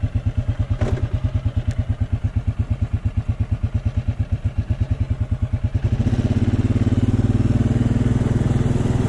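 A 2002 John Deere Buck four-wheeler's engine idling with a quick, even beat, running smoothly ("purrs like a kitten"). About six seconds in it picks up into a louder, steadier note as the ATV pulls away.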